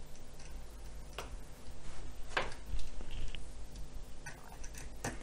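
Scattered small clicks and taps from wires and a screwdriver being worked at a circuit board's screw terminal: a few sharp ticks, the clearest about two seconds in and another just before the end, over a faint low hum.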